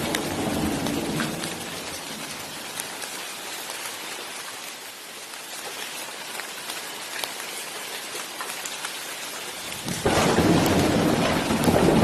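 Steady rain with scattered drop ticks, and thunder. A roll of thunder dies away over the first couple of seconds, and a new, louder rumble breaks in suddenly near the end.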